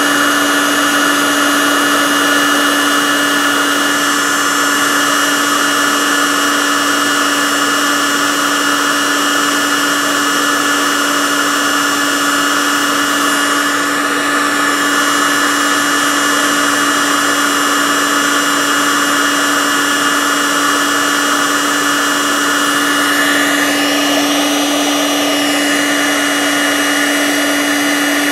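Electric heat gun running steadily, blowing hot air onto the fluidyne's copper hot cylinder: a constant motor hum over a rush of air. The hiss shifts in pitch briefly near the end.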